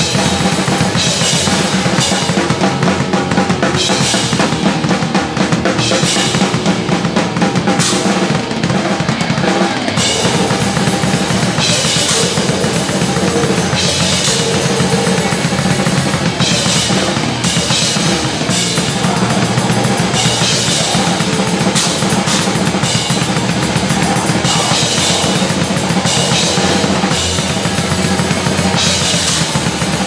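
Rock drum kit played live with a metal band, heard from right behind the kit: rapid kick-drum and snare strokes, with crash cymbals washing in every two to three seconds.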